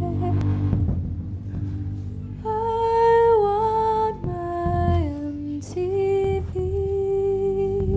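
A solo female voice singing a slow melody into a microphone in long held notes, stepping and gliding between pitches, over a steady low accompaniment.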